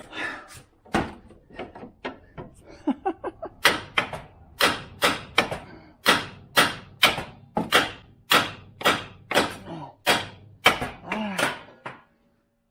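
Repeated hard knocks on metal: a few uneven blows, then a steady run of about two a second for several seconds, as the passenger-side CV shaft of a 2008 Jeep Compass is driven loose for replacement. A short grunt comes near the end.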